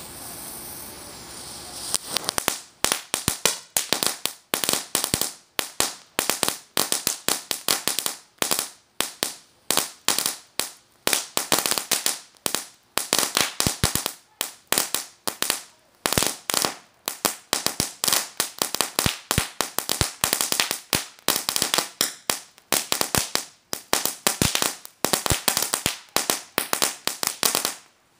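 A consumer firework, World Class Fireworks' Cracker Barrel, going off: a fuse hisses for about two seconds, then a long run of rapid, sharp firecracker bangs follows in dense clusters, with a short lull near the end.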